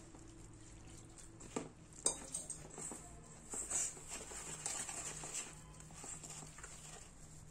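A hand squeezing and stirring wet batter in a stainless steel bowl: faint, irregular squelching and patting with a few light knocks, over a faint steady low hum.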